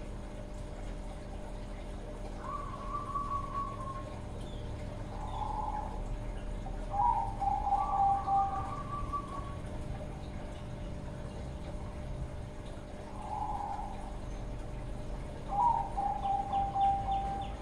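Young zebra dove (perkutut, Thai 'Bangkok' strain) cooing: about five separate coo phrases, each one to two seconds long, some stepping down in pitch. It is a young bird just beginning to sing readily.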